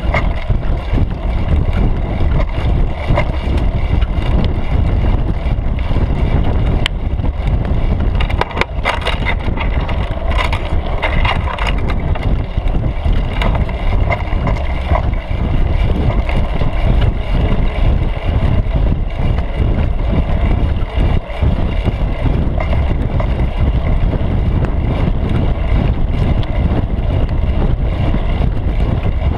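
Steady loud rumble of wind and trail vibration picked up by a seat-post-mounted GoPro Hero3 Black as a mountain bike rolls over a dirt trail, with a cluster of rattles and clicks about eight to twelve seconds in.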